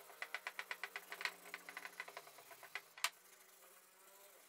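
Sanding pad rubbed quickly back and forth by hand across a stained wooden board, scuffing back the dark finish to bring up the grain: rapid scratchy strokes, about eight a second, that stop around two and a half seconds in. A single sharp knock follows near the three-second mark.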